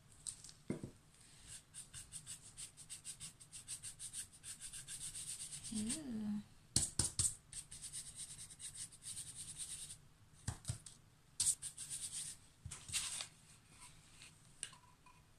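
A stiff paintbrush dry-brushing paint over a raised, textured stencil surface on a wooden board: quick, even scratchy strokes, several a second, broken by a few knocks of the brush or board on the table.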